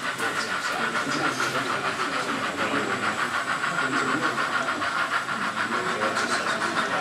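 Sound-fitted model steam locomotive chuffing steadily in a fast, even rhythm as it runs with its train.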